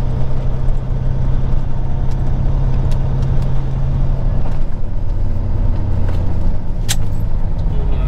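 Peterbilt 379 semi truck's diesel engine running steadily under way, heard inside the cab. Its note changes about halfway through, and a single sharp click comes near the end.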